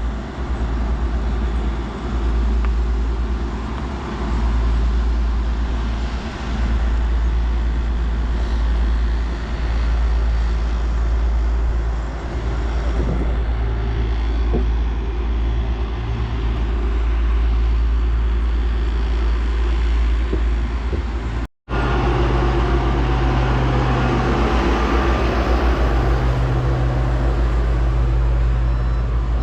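Heavy road-construction machinery engines running steadily with a deep rumble. There is a brief break about two-thirds of the way through, after which a steadier engine hum carries on.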